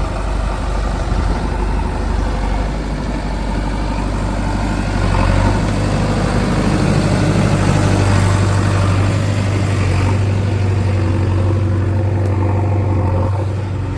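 Diesel engine of a JCB 3DX backhoe loader running with a steady low hum, growing louder about five seconds in and holding there.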